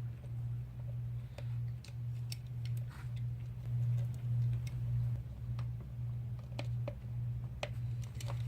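A steady low hum that swells and fades gently, with scattered light clicks and ticks of small hand tools working adhesive tape on a phone frame, more of them in the second half.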